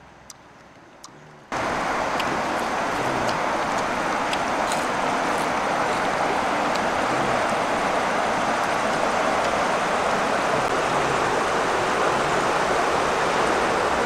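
A few faint clicks, then about a second and a half in a steady rush of a fast, shallow river running over stones starts abruptly and carries on evenly.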